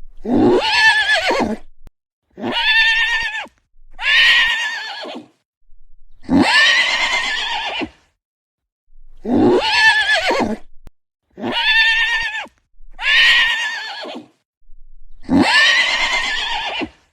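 Horse neighing: about eight separate whinnies one after another, each lasting one to two seconds with a wavering pitch, with short silent gaps between them.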